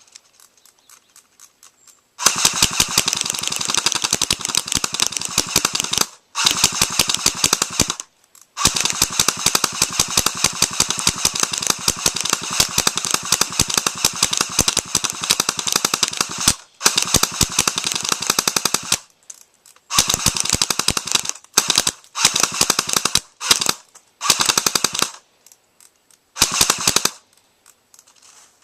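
Airsoft guns firing on full auto in rapid bursts: several long strings of shots lasting seconds, then shorter bursts of one to two seconds near the end.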